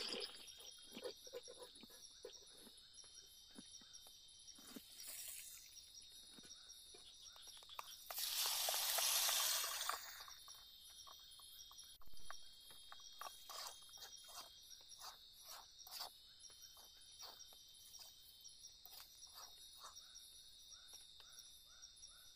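Steady high-pitched insect chorus in the forest, with scattered light clicks and knocks. About eight seconds in, a louder rush of noise lasts about two seconds.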